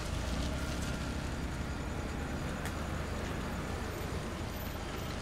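Car engine running at low speed as the car creeps forward, a steady low rumble with no sharp events.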